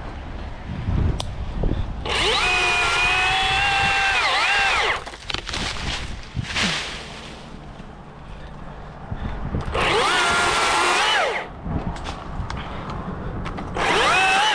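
Battery-powered chainsaw run up in three separate bursts, a long one, a shorter one and a brief one near the end, its electric motor whine rising as it spins up and dropping as it winds down each time.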